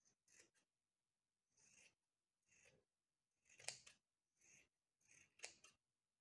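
Scissors snipping through layered sewn fabric, trimming the excess beyond a seam: about seven faint separate cuts, roughly one a second.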